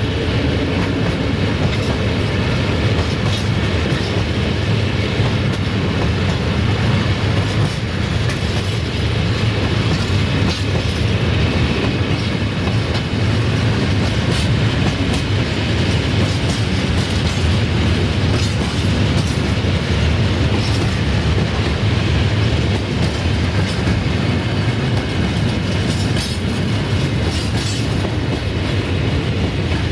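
Freight train of bogie hopper wagons rolling past close by: a steady rumble of steel wheels on rail, with repeated clicking and clatter as the wheels cross rail joints.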